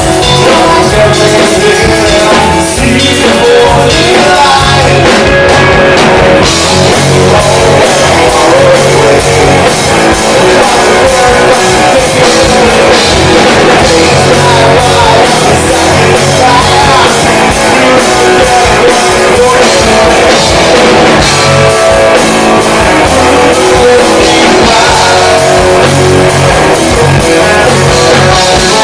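Live rock band playing loudly, with electric guitar and a drum kit.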